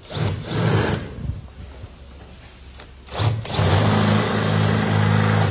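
A few short knocks and rattles, then a small motor, most likely a power tool, running steadily at one pitch for about two seconds near the end.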